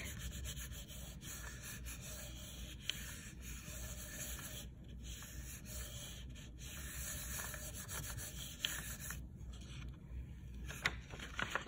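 Hand rubbing the back of a sheet of paper laid over an inked relief-print block, burnishing it to take the print: a steady, soft rubbing that pauses briefly a couple of times. Near the end a few short papery crackles as the sheet starts to be lifted off the tacky ink.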